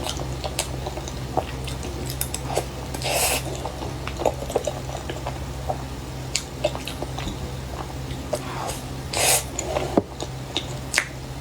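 Close-miked wet eating and handling sounds of a soft dessert: scattered small squishes, clicks and smacks at an irregular pace, over a steady low hum.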